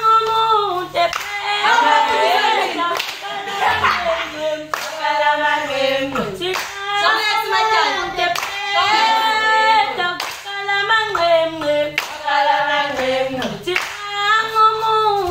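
A group of girls and women singing together unaccompanied, with steady rhythmic handclapping keeping the beat.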